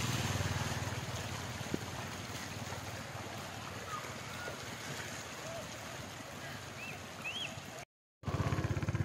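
Small motorcycle engine running at low speed through shallow floodwater on a road, with the wash of water around the wheels. The sound cuts out for a moment near the end, then the engine hum comes back.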